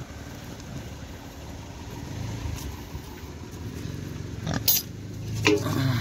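Steady low rumble of wind and handling on the microphone. Then, in the last second and a half, a few sharp knocks and clinks from a thin aluminium feeding bowl being picked up and handled.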